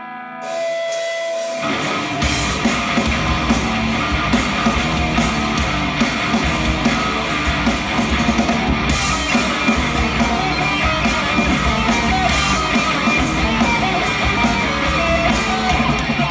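Live rock band playing the instrumental opening of a song: a short held guitar note, then drums, bass and electric guitars come in together about two seconds in and play on loudly without vocals.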